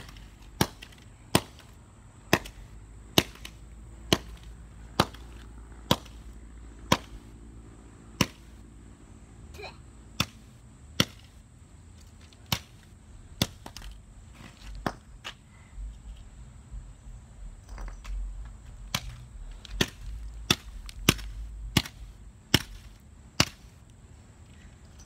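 Claw hammer striking an old iPhone lying on asphalt, sharp blows about once a second, cracking the phone's screen glass. The blows stop for a few seconds midway, then resume at a slightly quicker pace.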